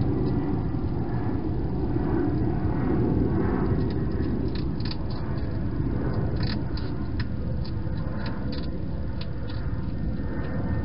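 A hedgehog eating from a bowl inside a plastic feeding box, its chewing heard as irregular small clicks and crackles, thickest from about four to nine seconds in. A steady low rumble lies underneath throughout.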